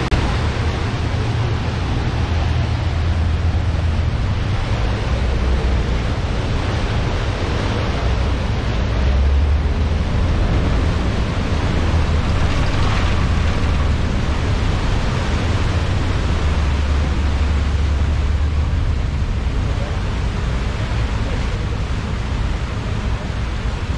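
Steady rush of wind and churning wake water on the open deck of a moving catamaran ferry, over the low, even rumble of its engines.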